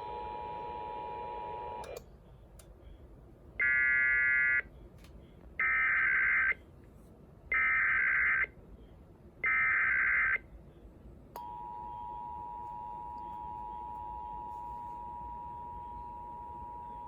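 Emergency Alert System tones. A steady two-tone attention signal ends about two seconds in. Then come four loud one-second bursts of buzzing SAME digital header data, about two seconds apart, and after those the two-tone attention signal starts again and holds.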